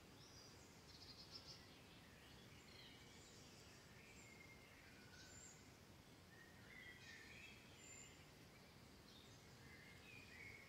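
Near silence: faint room hiss with scattered faint bird chirps.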